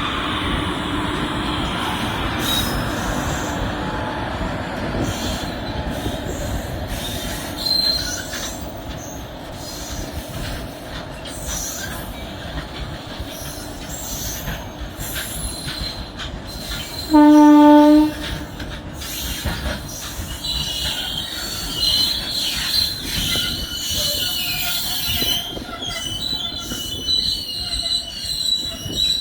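Heavily loaded goods train running past on the track with a steady loud rumble from its wagons, and high-pitched wheel squeal that grows stronger in the last third. A short train horn blast sounds a little past halfway.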